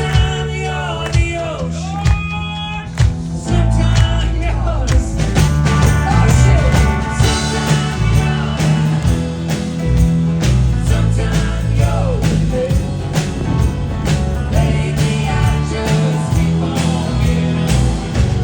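Rock band playing live: a singing voice over light accompaniment, then the full band with bass and drums comes in about three and a half seconds in.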